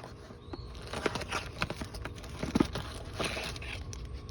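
Scattered light clicks, knocks and rustling from handling a new oil filter and its packaging.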